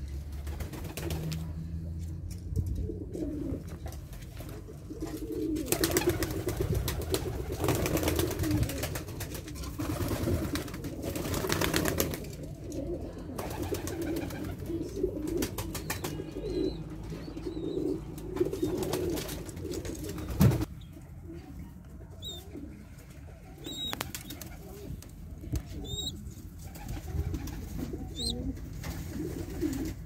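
Domestic pigeons cooing continually in a loft, with bursts of wing flapping and rustling, and one sharp knock about two-thirds of the way through.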